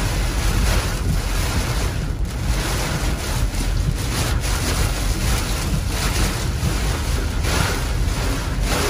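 Thunderstorm rain and wind buffeting a car, heard from inside the car: a loud, steady rushing with a deep low rumble that swells and eases every second or so.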